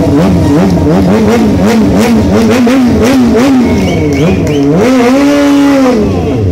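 Stunt motorcycle's engine revved in quick repeated throttle blips, rising and falling a little over twice a second. It is then held high for about a second and drops back to idle near the end.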